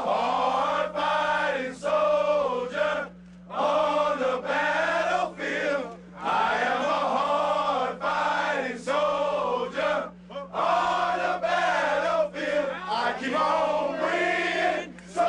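A group of men singing or chanting together in unison, in short phrases with brief breaks between them. A steady low electrical hum runs underneath.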